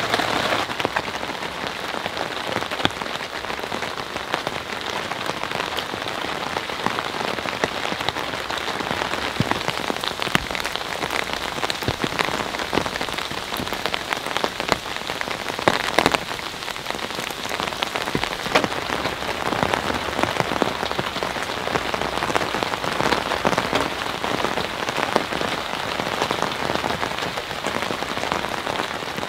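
Steady rain falling without let-up, many individual drops ticking on a nearby surface.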